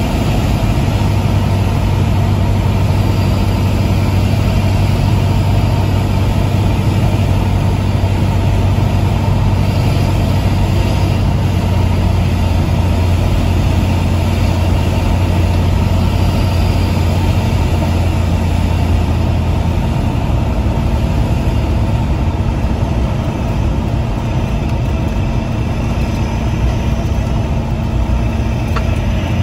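Cessna 172S's four-cylinder Lycoming engine and propeller running steadily, heard from inside the cabin during the approach and landing. About twenty seconds in, the low drone drops away and the sound gets slightly quieter, consistent with the throttle coming back toward idle for touchdown and rollout.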